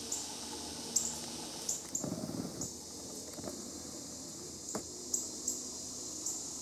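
Woodland insect chorus: a steady high-pitched buzzing hiss, with short high chirps repeating irregularly every half second to a second. A brief low rustle comes about two seconds in, and a faint click near five seconds.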